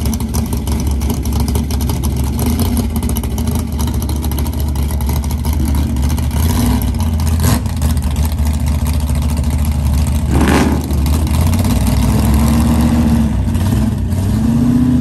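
A car engine running with a steady low drone. There is a sharp click about seven and a half seconds in and a brief louder swell about ten and a half seconds in.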